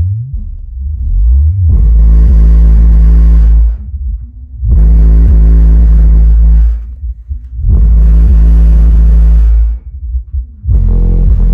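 KICKER Comp Gold 12-inch dual-voice-coil subwoofer in a ported box tuned to about 33 Hz, playing a bass-heavy song. Deep bass notes come in blocks of about two seconds with short gaps between them, and a sliding bass note comes about a second in. Things in the room rattle along with the bass.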